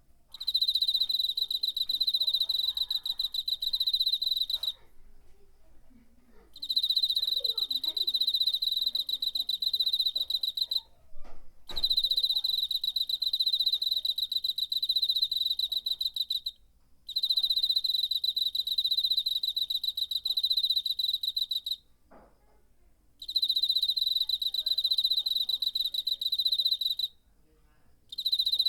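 A cricket singing a high, rapidly pulsed trill in long bouts of about four to five seconds, each broken off by a pause of one to two seconds.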